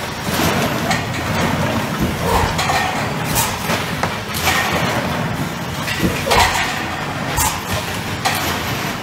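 Fully automatic PET stretch blow molding machine running, with a steady mechanical din and short, sharp bursts and clanks about once a second as it cycles.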